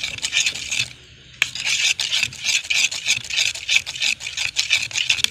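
Plastic spoon stirring and scraping a wet mix of broken instant noodles and ground spices around a plastic bowl in quick, repeated strokes. The stirring stops briefly about a second in and picks up again with a sharp click.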